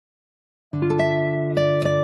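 Background music of acoustic guitar, plucked and strummed, cutting in suddenly out of silence well under a second in.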